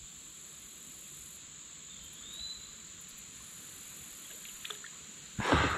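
Steady, high-pitched chirring of insects along the riverbank. A short rising whistle comes about two seconds in, and a brief louder noise comes near the end.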